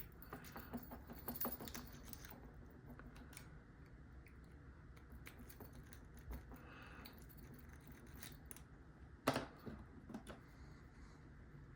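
Faint metallic clicking and scratching of a tickle-style lock pick being worked inside a small, cheap padlock's tight keyway, with one sharper click about nine seconds in.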